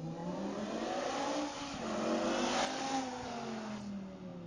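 BMW E60 M5's V10 with a custom exhaust, accelerating hard past: the engine note climbs for about two and a half seconds, then drops in pitch and fades as the car goes by.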